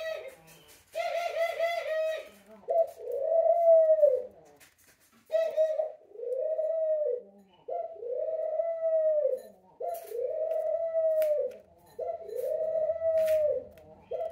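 Ringneck dove cooing: about six drawn-out coos that rise and fall, each about a second and a half long and repeated about every two seconds, the first with a rattly, stuttering start. A few faint clicks fall between the later coos.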